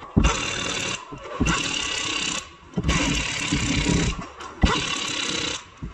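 A power tool running in four bursts of about a second each, with short pauses between them.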